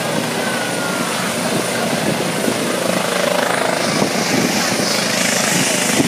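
Rescue helicopter hovering low, its rotor and turbine noise a steady, dense wash of sound, with a brighter hiss coming up about four seconds in.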